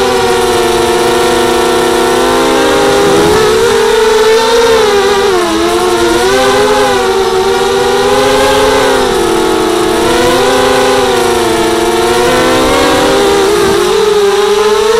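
Brushless motors and propellers of a 230 mm FPV racing mini quadcopter, heard from its onboard camera: a loud, steady whine whose pitch keeps rising and falling as the throttle changes.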